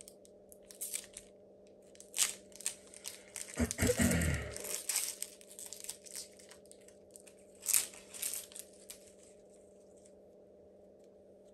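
Foil wrapper of a Pokémon TCG Lost Origin booster pack crinkling and tearing as it is opened, in scattered crackles with a longer, fuller rustle about four seconds in.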